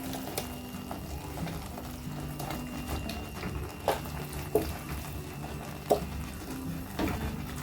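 Marinated chicken being stirred into masala paste in a frying pan, with light sizzling and a few sharp knocks of the spoon against the pan. Soft background music plays underneath.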